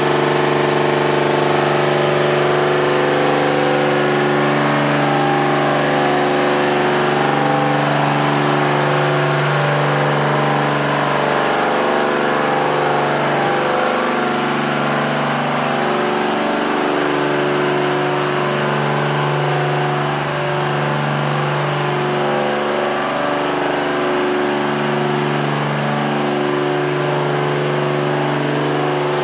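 A livestock barn's misting cooling system running: a steady machine hum with an even hiss of spray over it. The hum wavers briefly in the middle and then settles again.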